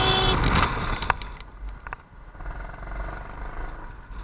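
Motorcycle riding in city traffic, heard from the rider's helmet camera: a steady low engine-and-wind rumble. A horn sounds for about half a second at the start, and there is a sharp click about a second in.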